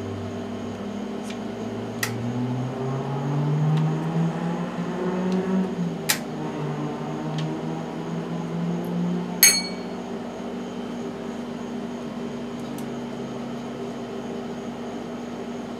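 Small metal parts and a screwdriver clicking against a mower carburetor while its screws are taken out: a few sharp clicks, then one ringing metallic clink about nine and a half seconds in. A steady machine hum runs underneath.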